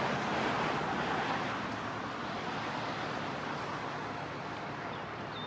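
Steady outdoor background noise: an even, broad hiss that eases off slightly over the first couple of seconds.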